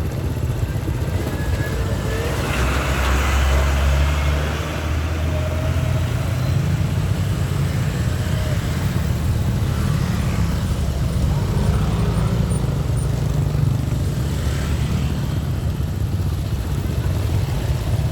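Road traffic: a steady low rumble of engines and tyres, with a vehicle passing louder a few seconds in and another near the end.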